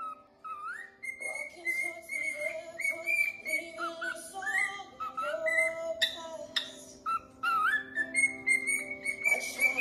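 Cockatiel whistling in short rising and falling notes, with a song playing underneath from about a second in.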